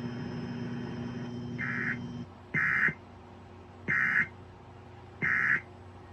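Emergency Alert System end-of-message code played over a radio: three short bursts of warbling digital data tone, a little over a second apart, preceded by a fainter burst. Steady radio static and hum underlie the first two seconds, then drop away.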